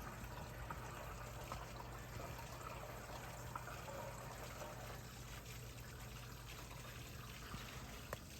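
Aquarium sump plumbing with water and air rushing and gurgling down the external overflow's secondary drain, over a steady low hum. The gyre pumps make the overflow level fluctuate so the drain pulls in air, the source of the noise the owner is trying to quiet.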